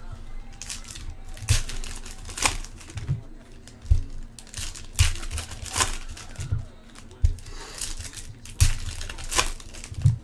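Foil Panini Select trading-card packs being torn open and crinkled by hand: irregular crackling rips of foil throughout, with occasional low thumps of handling.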